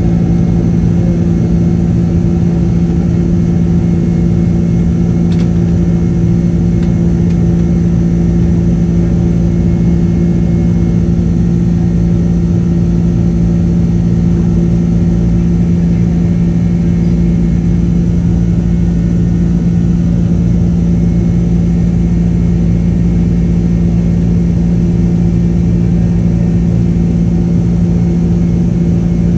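Boeing 767-300ER's engines at takeoff and climb thrust, heard from inside the cabin over the wing: a loud, steady drone with a strong low hum over a deep rumble.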